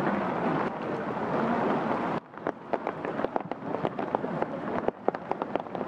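Rain: a dense, steady hiss that cuts off suddenly about two seconds in, then individual heavy raindrops tapping close by, irregular and many per second.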